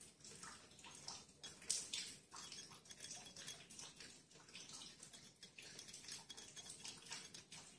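Faint, quiet handling of a steel vernier caliper against a motorcycle crankshaft flywheel: scattered light metallic ticks and clicks over a low hiss, a little stronger about two seconds in.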